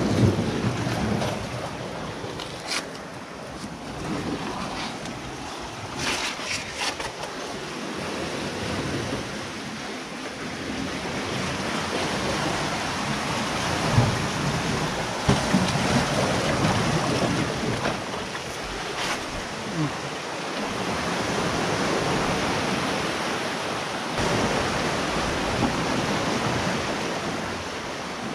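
Ocean surf washing among coastal boulders, a steady rush that swells and eases over several seconds, with a few sharp knocks and scrapes against the rock.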